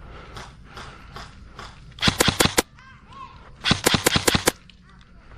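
Airsoft gun firing two short bursts of rapid shots, the first about two seconds in and the second about a second and a half later.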